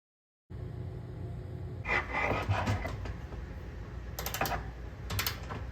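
Hand tools and metal parts clicking and scraping over a steady low hum. There is a rustling stretch about two seconds in and clusters of sharp clicks near the end.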